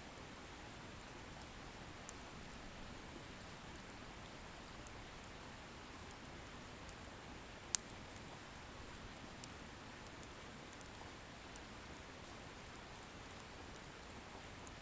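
Firewood bonfire burning with a faint, steady hiss and light crackle, and a sharp pop of the wood about halfway through, with a couple of smaller snaps around it.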